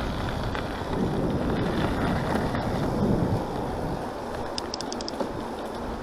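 Mountain bike being ridden along a trail: wind buffeting the microphone over the rumble of the tyres and rattle of the bike, with a brief run of high ticks about five seconds in.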